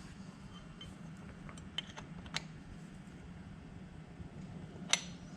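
A few sharp, isolated clicks of hand tools against metal, the loudest near the end, over a low steady hum.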